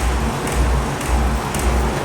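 750 kg pneumatic forging hammer running, with a low, even thudding about twice a second over continuous machine noise.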